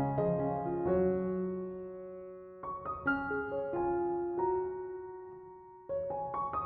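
Soft piano background music: chords and short note runs struck every few seconds and left to ring and fade.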